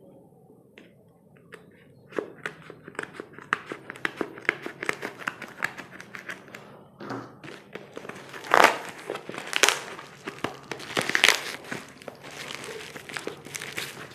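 Courier packaging being unwrapped by hand: steady crinkling and rustling, with three louder tearing rips in the second half.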